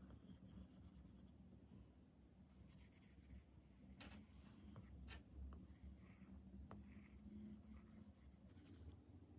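Faint scratching of an Apple Pencil tip stroking across an iPad's glass screen while painting, with a few light ticks of the nib near the middle.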